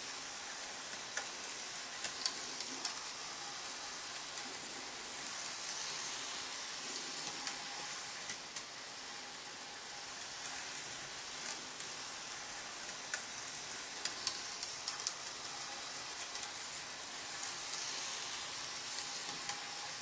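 Model tram running on its track: a steady hiss from its small motor and wheels, with a faint steady whine under it and a few light clicks. The hiss swells and fades slowly twice.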